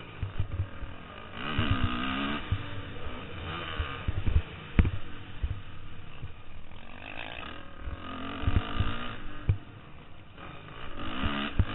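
Dirt bike engine revving up and easing off in several bursts as it is ridden on a motocross track, heard through a helmet camera, with wind buffeting and repeated low thuds from the bike hitting bumps.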